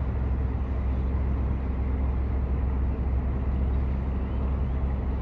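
Diesel locomotive running at low throttle as it moves the Thomas the Tank Engine replica slowly along the track: a steady, low, even engine drone.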